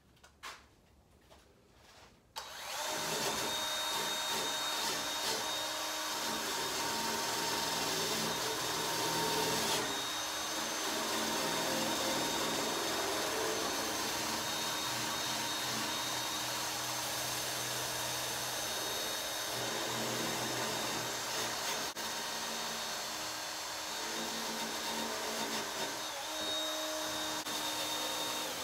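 Cordless drill spinning a wire brush against rusty painted metal, scrubbing off surface rust. It starts about two seconds in, after a few light clicks, and runs steadily with a high motor whine.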